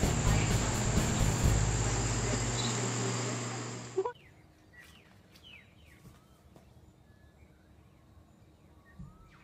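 Steady outdoor noise with a low hum that cuts off abruptly about four seconds in, leaving a quiet garden with faint, scattered bird chirps.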